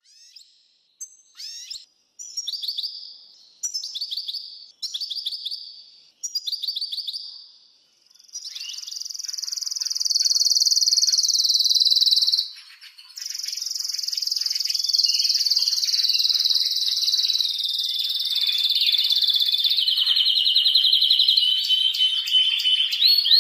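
Male canary singing an excited breeding-season song: about five short trilled phrases a second or so apart, then, from about eight seconds in, one long unbroken run of rapid trills that slowly drops in pitch.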